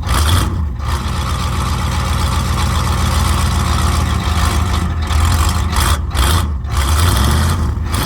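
Ford 6.9-litre IDI V8 diesel engine running steadily at idle, drawing an ATF-and-diesel-cleaner mix from a freshly filled fuel filter into its injection pump.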